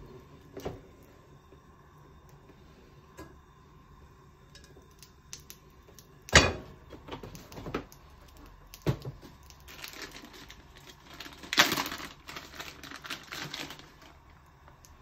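A plastic Ziploc bag crinkling and rustling as it is opened and handled, in two stretches in the second half. Before it come a few light clicks and one sharp knock about six seconds in.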